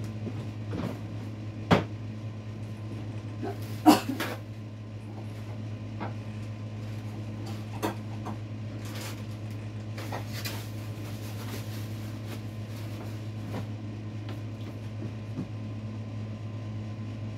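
Off-camera kitchen clatter: a few sharp knocks, the loudest about four seconds in, over a steady low hum.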